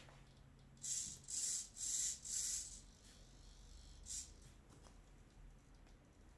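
Handling noise: four short hissing rubs about half a second apart, then one more a couple of seconds later, as a hand moves over a desk and picks up small plastic parts.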